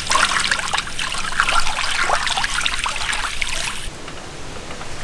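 Thin masala of tamarind water and ground spices being stirred in a large metal pot, a wet sloshing and dribbling that cuts off suddenly about four seconds in.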